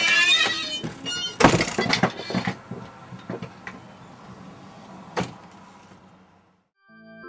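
A door squeaks and shuts with a heavy bang about a second and a half in, followed by a few smaller knocks and fading room noise. After a brief silence near the end, electronic organ music begins.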